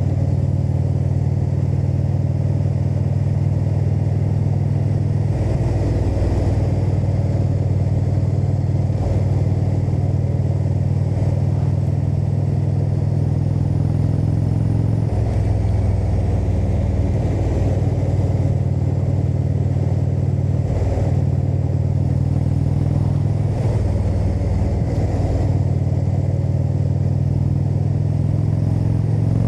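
Indian V-twin motorcycle engine and exhaust running on the road, heard from the rider's seat, with the engine note changing pitch a few times as the throttle and gears change.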